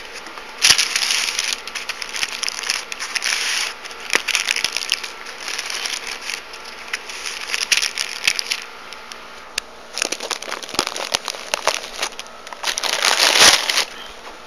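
Plastic bag crinkling and foam packing end caps rubbing as a laptop is worked out of its box, in irregular rustling bursts with small clicks. The loudest burst comes about a second before the end.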